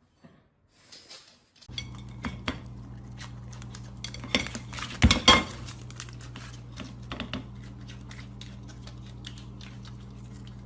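Many light clinks and taps of hard objects over a steady low hum, starting after a short silence, with a cluster of louder clinks about halfway through.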